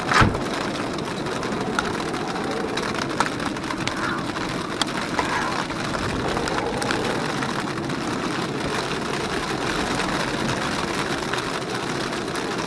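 Rain falling steadily on a Jeep Wrangler JKU's roof, heard from inside the cab over the engine idling, with a sharp knock just after the start and a few scattered taps.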